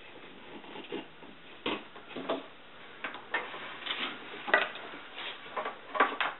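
Irregular clicks, taps and rubbing from a 16mm film projector's power cord being unplugged and handled, about ten sharp knocks spread unevenly, the loudest around the middle and near the end.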